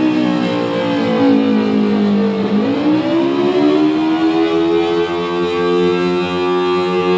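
Synthesized Thunderbolt 1000T civil defense siren, a low-pitch 4/5-port tone made in Audacity, played through a karaoke machine's speaker and sounding an attack signal. The pitch slides down for about two and a half seconds, then rises again and holds.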